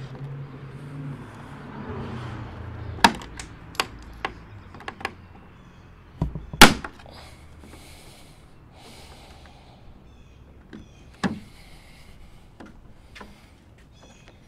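Plastic lower headlight trim being worked off a 2021 Ram 2500 by hand, its retaining clips snapping loose. There is a run of sharp clicks and snaps a few seconds in, a loud knock about halfway, and one more snap later.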